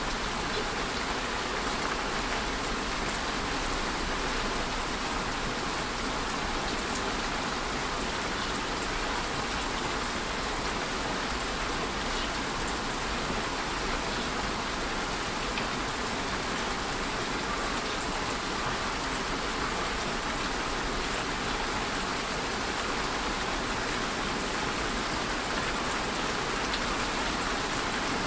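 Steady rain falling, an even hiss of many drops with faint scattered patters, unchanging throughout.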